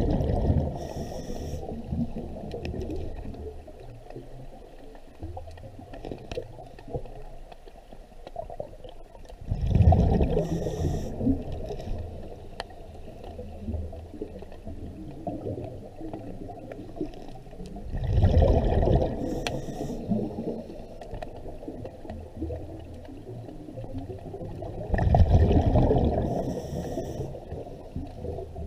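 A scuba diver breathing, heard underwater: exhaled bubbles from the regulator come out in bursts of about two seconds, four times at intervals of about eight seconds, over a low steady rumble.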